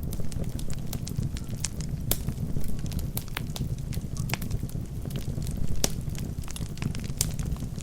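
Logs burning in a fireplace: a steady low rumble of the flames with frequent, irregular sharp crackles and pops from the wood.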